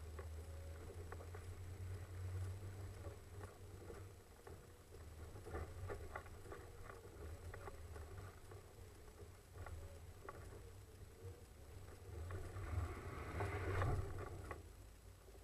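Off-road vehicle crawling along a rough trail: a low engine rumble with scattered knocks and rattles, and a louder rush of noise about three-quarters of the way through.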